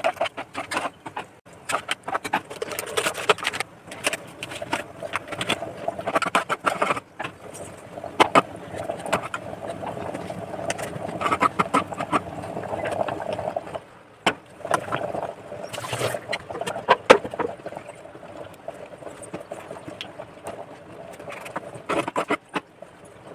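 Metal ladle stirring sambar in an aluminium pressure cooker, with repeated irregular sharp clinks and scrapes against the pot.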